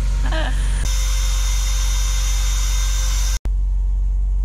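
Handheld cordless vacuum running with a steady motor hum, used to suck up mosquitoes. About a second in a strong airy hiss of rushing air joins, then the sound drops out for an instant before the motor hum goes on.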